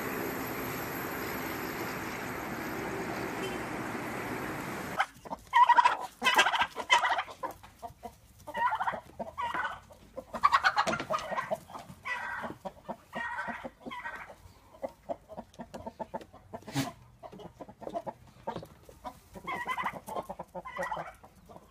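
Steady street noise for the first few seconds, then backyard hens clucking and calling, with a turkey among them, in many short irregular calls.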